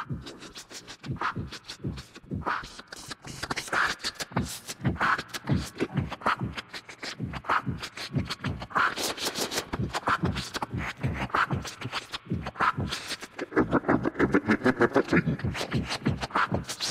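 A rhythmic beat of quick clicks and hits, with a sharper accent about every second and a quarter. A low pitched hum joins it for a couple of seconds near the end.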